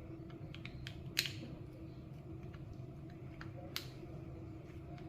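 Scattered small clicks and taps of clipper parts and a tool being handled while hair clippers are taken apart. There are two sharper clicks, about a second in and near four seconds, over a faint steady hum.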